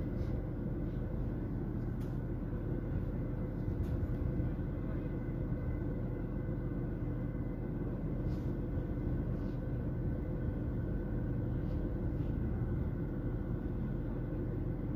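A vehicle engine idling, a steady low rumble that stays even throughout.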